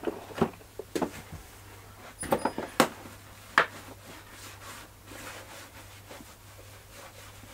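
A few sharp plastic knocks and clicks as the Flymo mower's plastic grass box is handled, then faint rubbing of a microfiber cloth wiping the box down.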